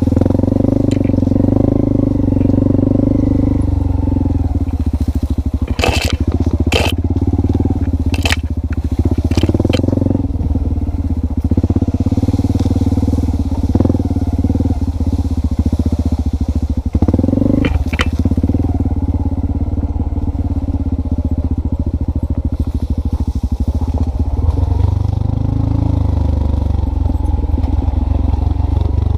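An engine running steadily at a low pitch, its note shifting a few times, with a handful of sharp clicks.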